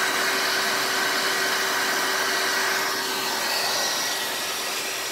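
ReDeTec Protocycler filament extruder running while it extrudes and calibrates PLA filament: a steady whir of its fan and motor with a few steady hums, dipping slightly about three seconds in.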